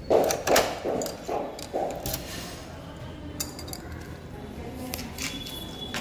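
Metal key working a hotel room door lock, with several clinks and clunks in the first two seconds, then a few fainter clicks.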